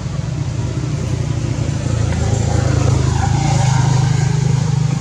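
Low, steady rumble of a vehicle engine running, growing a little louder after about two seconds.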